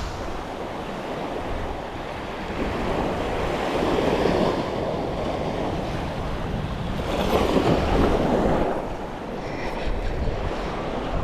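Surf washing on the beach, with wind buffeting the microphone; the wash swells louder twice, about four seconds in and again around seven to eight seconds in.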